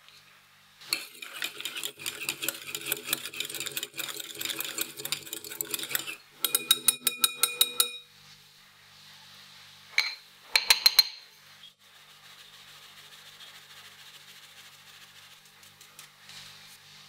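Wire whisk beating melted butter and milk with a little sponge batter in a glass bowl: rapid clinking strokes of metal against glass that turn fast and even toward the end. A few sharp metal-on-glass clinks follow, then it goes quiet.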